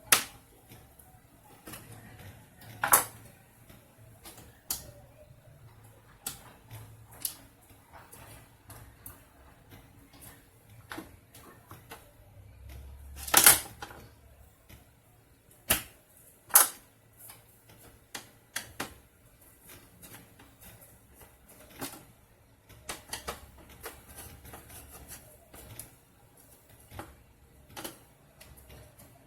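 Irregular clicks and knocks of hand tools and small parts being handled while a TV's main board is swapped, with a few louder knocks in between.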